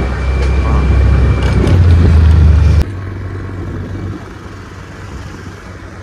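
Loud, deep road-vehicle rumble on the move. It cuts off abruptly about three seconds in, leaving a quieter, steady traffic background.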